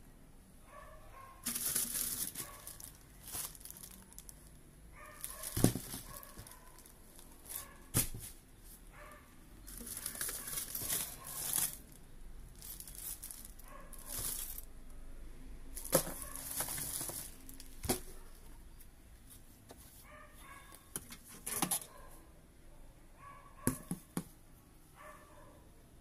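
Plastic packaging bags crinkling and rustling in irregular bursts as the wrapped accessories are lifted out of a top-loading washing machine's drum, with a few sharp knocks and clicks.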